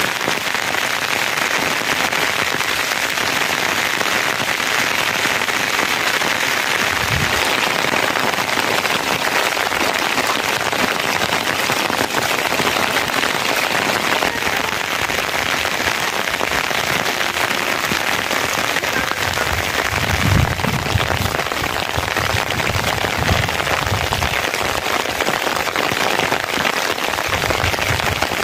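Steady rain falling on the ground and roofs, an even hiss. A few dull low thumps come through about seven seconds in and again near the end.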